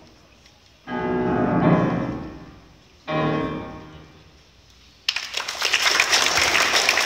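Grand piano sounding two loud closing chords about two seconds apart, each left to ring and die away. About five seconds in, an audience breaks into applause.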